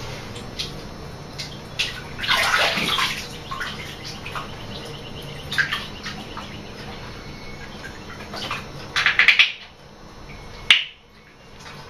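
Bathwater splashing and sloshing in a bathtub as people wash their faces and hair by hand, in several separate splashes, the loudest about two seconds in and again near the end.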